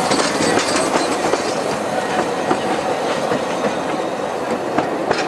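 Open passenger cars of a narrow-gauge train rolling past close by, their wheels clicking steadily over the rail joints with a continuous rumble.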